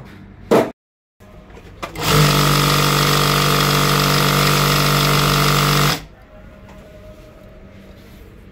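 Single-needle lockstitch industrial sewing machine starts about two seconds in, runs steadily for about four seconds while sewing a test seam, and stops abruptly. The seam is a check of the stitch after the needle-bar height and needle-to-hook timing were reset to cure bunched, beaded stitching.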